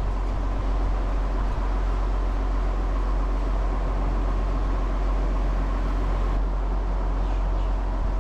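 Motor boat's engine running steadily underway, a constant low drone with wind and water noise over it.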